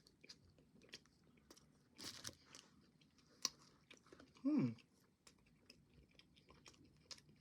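Close-up chewing and biting of a waffle, with small crunchy mouth clicks throughout. About halfway through there is a short, falling "mmm" of appreciation.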